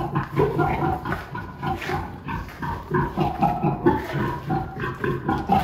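Domestic pig grunting in a steady run of short, low grunts, about three a second.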